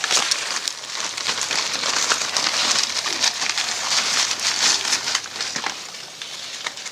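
Plastic polybag crinkling and tearing as it is peeled off a seedling's root ball, a dense crackle that eases near the end.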